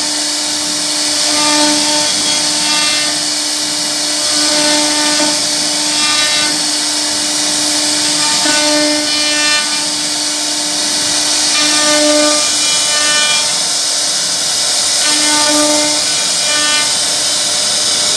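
CNC wood router spindle cutting into a wooden panel: a steady, hissing cutting noise with a humming tone that comes and goes as the bit moves through the wood.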